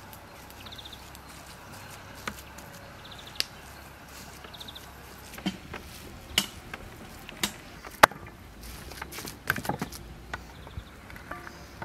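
Hands kneading and gathering minced meat on a wooden cutting board, with scattered sharp knocks and taps, the loudest about eight seconds in and a quick cluster just after.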